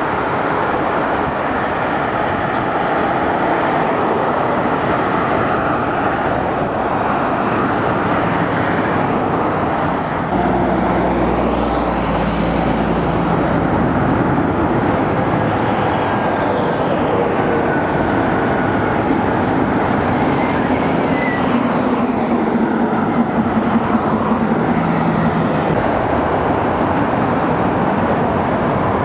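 Sound Transit light rail train running on elevated track: a steady rushing noise with faint whines that rise and fall in pitch, and a low rumble that comes in about ten seconds in.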